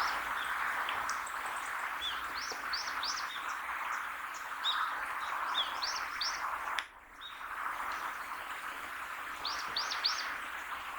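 Small birds chirping: quick clusters of short, high notes, repeated every second or so, over a steady background hiss. The sound dips briefly a little past halfway, then the chirping resumes.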